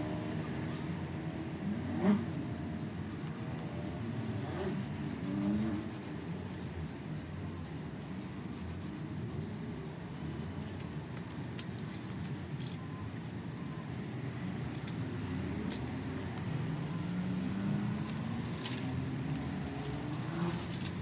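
Motor vehicle engine noise nearby, a low hum whose pitch drifts up and down, rising near the end. A short sharp knock about two seconds in.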